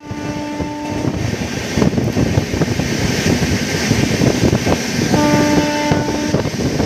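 WAP-7 electric locomotive's horn sounding twice, a blast of about a second at the start and another of just over a second about five seconds in. Beneath it run the steady rumble and clatter of the coach's wheels over the track at speed.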